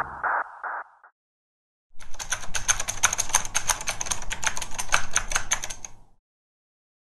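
A rapid run of typewriter key strikes, about eight a second for some four seconds, typing out a caption. Before it, in the first second, a pulsing tone fades away.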